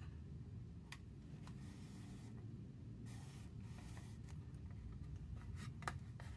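Faint rubbing and rustling of paper and card handled and pressed by hand, with a couple of light taps, over a low steady room hum.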